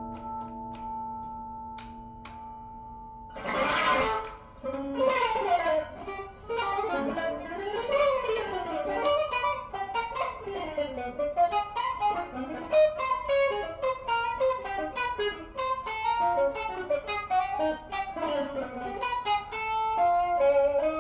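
Electric guitar playing solo: a held chord rings and fades, then a sharp strummed chord about three and a half seconds in. Fast single-note runs follow, climbing and falling up and down the neck.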